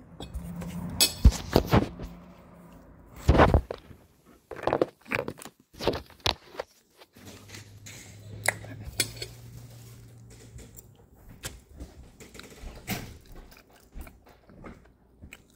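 A few loud knocks and bumps in the first few seconds as the phone is handled and set up. Then a metal fork taps and scrapes on a plate, with a person chewing food between the taps.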